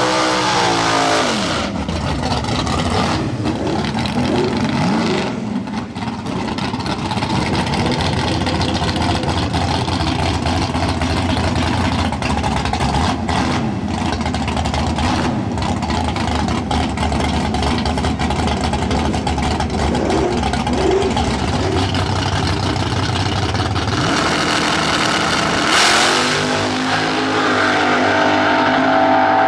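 Drag race car engines. Revving at the start, then a long stretch of loud, dense engine noise, then revving again near the end, with a brief sharp burst about 26 seconds in.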